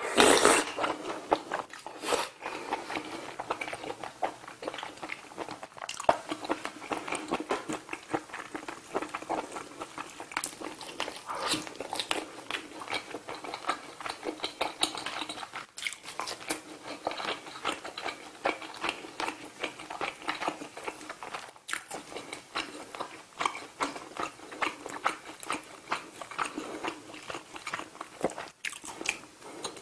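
Close-miked eating sounds: a person chewing and biting mouthfuls of soft tofu stew and grilled saury, with many small wet clicks and crunches. There is a loud burst right at the start as a spoonful goes in.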